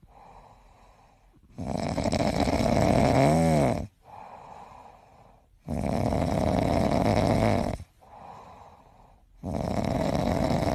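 A sleeping grey cat snoring: three long snores about four seconds apart, with quieter breathing between them.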